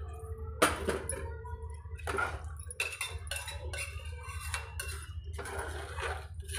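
A metal spoon clinking and scraping against a pressure cooker pot several times while stirring rice, lentils and water, with the loudest knock about half a second in. A steady low hum runs underneath.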